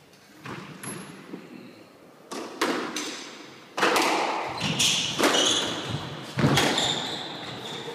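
Squash rally: the rubber ball is struck by rackets and slaps off the court walls in a string of sharp, echoing hits about every second. Short high squeaks of court shoes on the wooden floor come between the hits in the second half.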